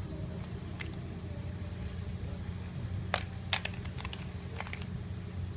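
A few sharp clicks of drawing tools being handled at a drawing board: two louder clicks a little over three seconds in, then several lighter ones, over a steady low background hum.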